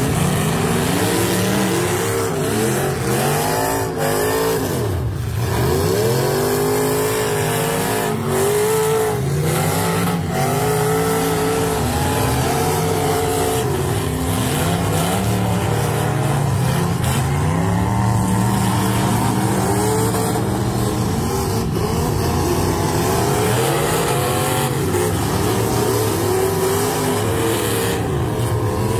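Several demolition derby cars' engines revving hard and dropping off, many at once and overlapping, as the cars accelerate and ram one another.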